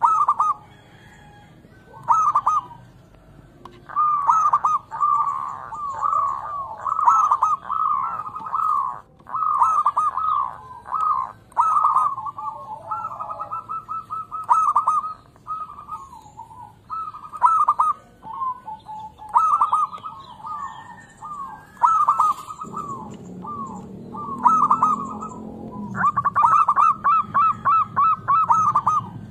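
Zebra dove (perkutut) cooing: quick runs of short, rippling coos, repeated in bursts with brief pauses between them.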